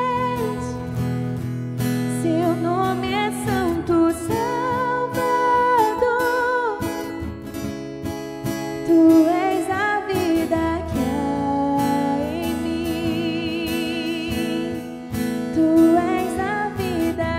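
Woman singing a Christian praise song into a microphone, with held notes sung with vibrato, over acoustic guitar accompaniment.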